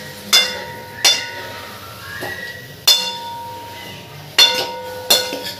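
A metal ladle knocking against a steel kadhai while chicken feet, onions and spices are stirred in it. There are about six sharp clinks, two of them close together about four and a half seconds in, and after each one the pan rings on briefly.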